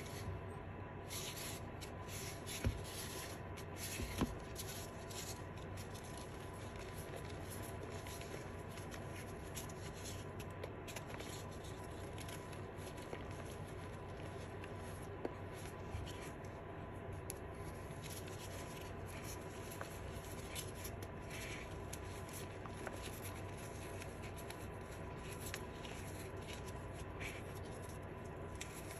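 Fingers rubbing and crumbling powdery blue reformed chalk in a plastic tub, a soft continuous grainy rustle. Two sharp clicks come a few seconds in.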